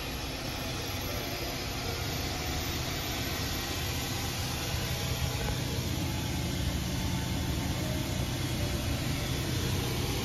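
Citation X auxiliary power unit (APU) starting up and spooling, heard from inside the cockpit as a steady, noisy hum that grows slowly louder.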